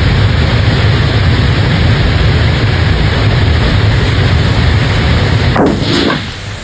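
Steady, loud rumbling noise that drops away suddenly near the end.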